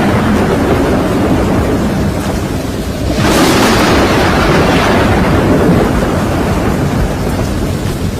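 Storm noise of wind and heavy rain, with a sudden loud surge about three seconds in that dies away slowly.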